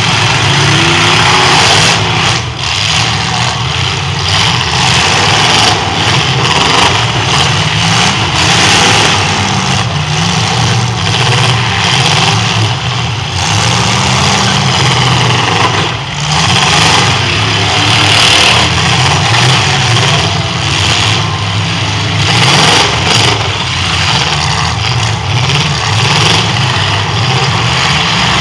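Several eight-cylinder demolition derby cars running together, their engines revving up and down, with now and then the crash of cars ramming one another.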